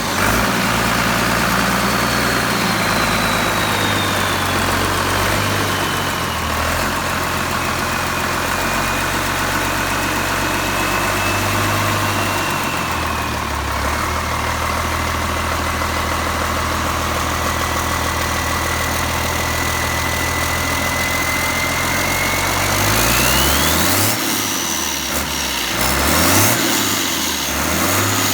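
Air-cooled Deutz BF6L913 turbocharged six-cylinder diesel running with its turbocharger whistling. The whistle slowly falls in pitch as the engine settles toward idle and holds steady. Near the end the engine is revved a few times, and the whistle rises sharply.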